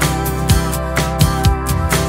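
Background music with a steady beat laid over the footage.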